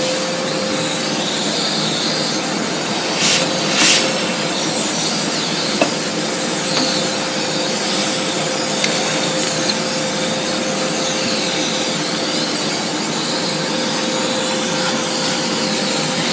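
Kärcher construction vacuum cleaner running steadily with a steady whine, sucking dust out of a desktop computer case. Two short louder rushes come about three and four seconds in.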